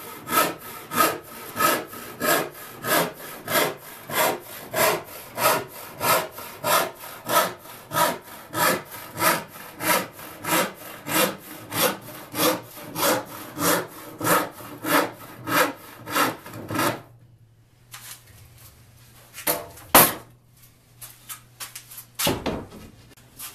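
Hand crosscut saw cutting through plywood in steady back-and-forth strokes, about one and a half a second. The sawing stops about three-quarters of the way through, followed by a few knocks and one sharp click.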